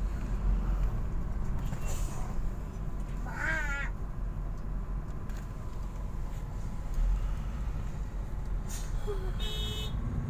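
Steady low rumble of idling and creeping heavy-vehicle engines, heard from inside a bus. About three and a half seconds in there is a short wavering high-pitched call, and near the end a brief high tone.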